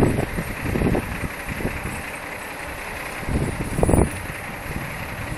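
Engines of a semi truck and a car idling, a steady low rumble, with a few short louder bursts of noise, the strongest about four seconds in.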